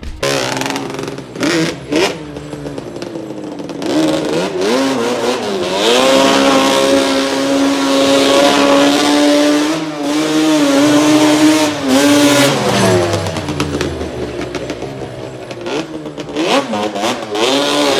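Quad bike (ATV) engine revving up, climbing in pitch in steps, then holding high revs steadily for several seconds before dropping off. It revs up again near the end.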